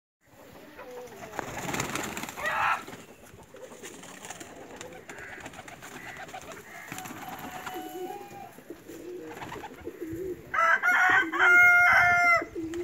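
Domestic pigeons cooing in low, repeated notes, with a louder pitched call lasting about two seconds near the end.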